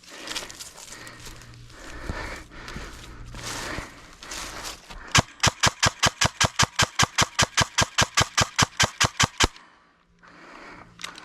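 Rustling movement through brush, then an airsoft gun firing a rapid string of about thirty shots at roughly seven a second, lasting about four seconds before stopping.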